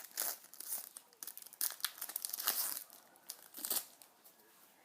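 A hockey card pack's wrapper being torn open and crinkled in the hands: a run of crackly rustling and tearing that stops nearly a second before the end.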